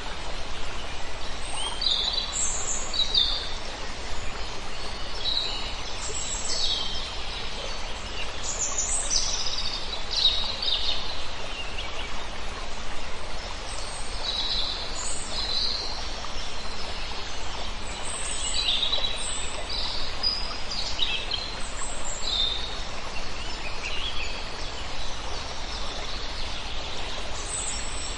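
Many songbirds chirping and trilling in short, overlapping calls, over a steady rushing hiss of flowing water.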